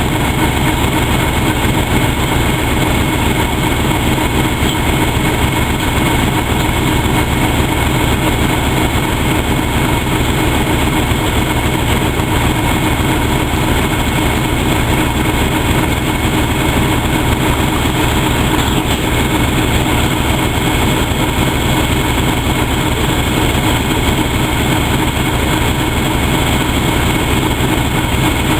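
Steady running noise of a vehicle, with a fast, even low throb and a faint steady high whine.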